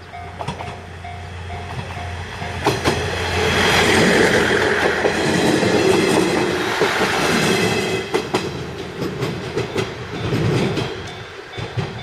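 Hachiko Line diesel railcar passing over a level crossing: the train's noise swells to its loudest about four to seven seconds in and then fades, with the wheels clicking over rail joints. The crossing's warning bell rings in repeated tones over it.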